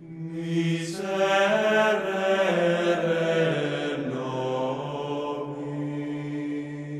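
Slow, chant-like vocal music with long held notes, swelling about a second in and moving to a new note around four seconds in.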